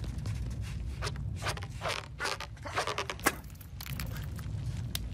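Cartoon sound effects: scattered creaks, scrapes and small clicks, with one sharper click about three seconds in, over a low steady rumble.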